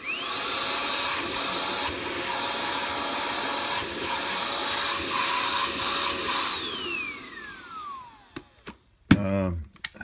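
Hart HPVSV50 20V cordless stick vacuum switched on: its motor whines up to speed within half a second and runs steadily with a rush of air for about six seconds. It then switches off and winds down with a falling whine. A sharp knock follows about a second later.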